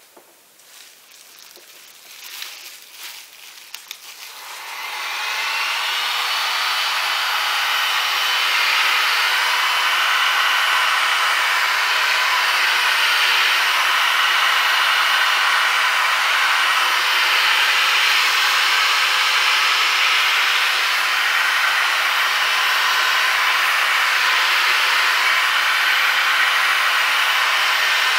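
Some rustling and a couple of clicks, then about four seconds in a hot-air blower starts and runs steadily, a loud even rush of air with a faint whine in it, blowing over a fresh acrylic pour.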